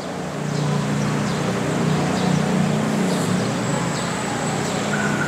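A motor running steadily: a low hum with a hiss over it, getting slightly louder about half a second in.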